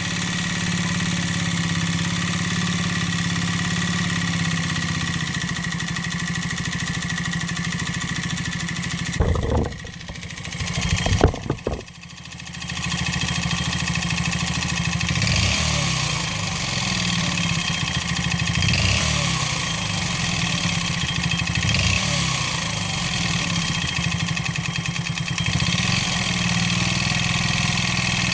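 139QMB 50cc four-stroke single-cylinder scooter engine running with piston slap: its piston skirt has been deliberately ground short and the cylinder honed out, leaving a large piston-to-bore clearance. About nine seconds in the sound breaks off briefly with a few sharp knocks, then the engine runs on with its speed rising and falling slightly.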